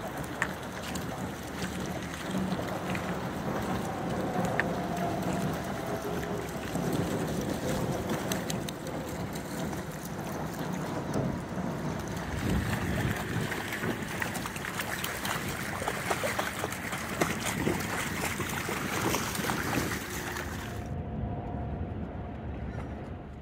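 Splashing and sloshing of several dogs and a person wading through shallow river water, many small splashes over a steady rushing background. About 21 seconds in, the sound drops suddenly to a quieter, duller background.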